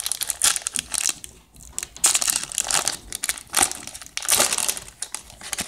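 Foil wrapper of a trading card pack crinkling in irregular bursts as gloved hands tear it open and pull it off the cards.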